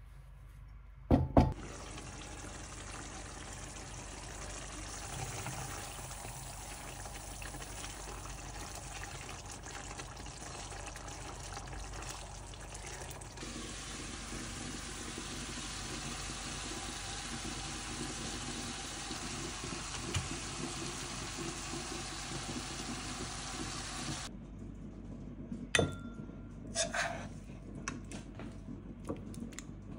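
Mutton curry simmering in a pan: a steady bubbling hiss that cuts off abruptly about three-quarters of the way through. There is a sharp knock about a second in and a few clinks of a spoon against the pan near the end.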